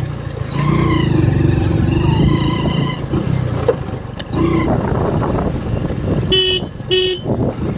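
Motorcycle running along a rough village road, with engine and road rumble throughout. Near the end a vehicle horn gives two short beeps, about half a second apart.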